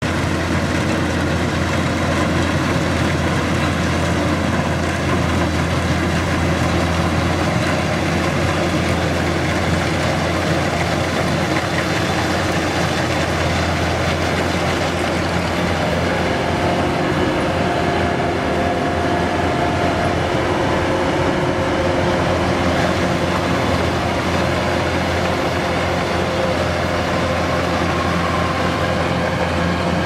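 Kubota DC-105X combine harvester running steadily as it harvests rice: a constant low engine drone under a dense mechanical din from its cutting and threshing machinery.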